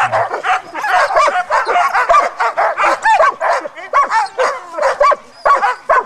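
A team of harnessed sled dogs barking and yelping all at once: many short, high, overlapping yips and barks, one on top of another, with a brief lull near the end.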